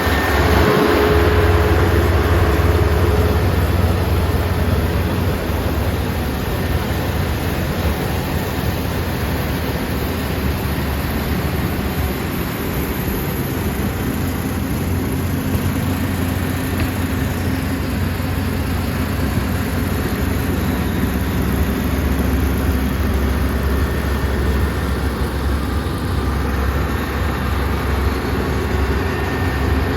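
Rice combine harvester's engine running with a steady, loud, low hum that eases slightly after the first few seconds.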